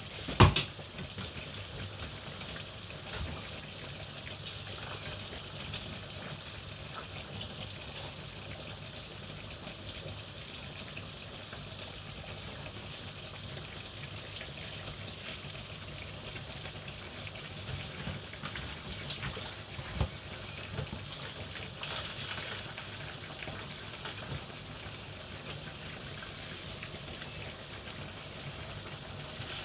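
Steady hiss of pots cooking on a gas hob, with one sharp knock of a utensil against a pan about half a second in and a few lighter knocks later.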